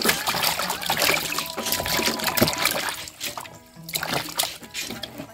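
Water splashing and sloshing in a basin as hands rub and wash rice field eels, busiest in the first three seconds, over background music.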